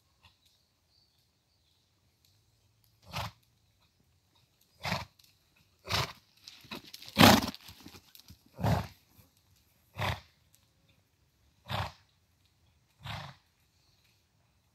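A horse snorting, blowing out hard through its nostrils about eight times at uneven intervals of one to two seconds; the loudest and longest snort comes a little past the middle.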